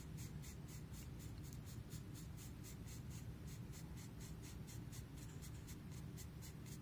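Pencil scratching on paper in quick, even strokes, about five a second, as shading is worked in.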